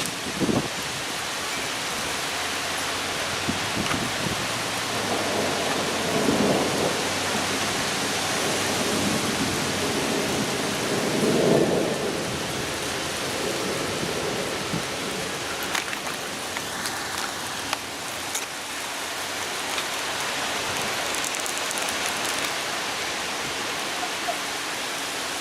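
Heavy rain pouring steadily in a thunderstorm, with thunder rumbling about six seconds in and again, louder, at about twelve seconds.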